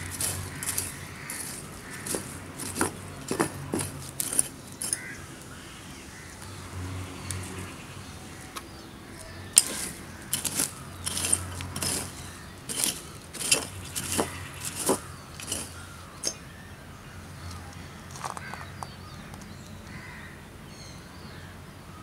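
Small metal hand rake and fingers digging through dry, twiggy soil: short, irregular scratching and scraping strokes with light clinks, in two busy spells with a quieter stretch between and a few last scrapes near the end.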